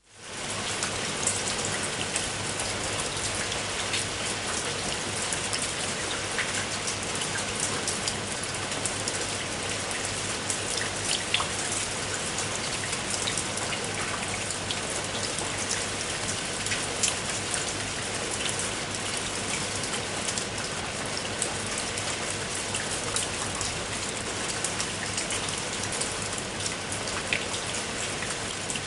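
Steady rain falling on a surface, an even hiss dotted with many distinct drops ticking and pattering, fading in over the first second.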